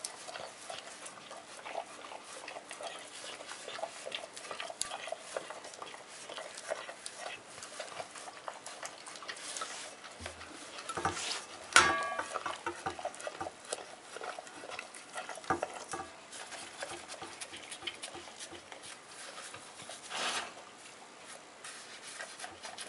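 Dog eating from a stainless steel bowl: continuous licking and lapping, with its tongue and muzzle clicking and scraping on the metal. A little before halfway, a loud clang as the bowl is knocked, ringing briefly.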